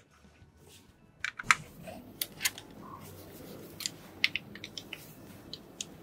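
Irregular sharp metallic clicks of a hex key working the captive cover screws of an AUMA electric valve actuator as they are tightened crosswise. The clicks start about a second in and come about a dozen times.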